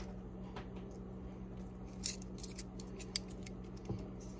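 Metal kitchen tongs clicking as chicken tenders are set onto a casserole, with a quick run of light clicks about two seconds in, over a steady low hum.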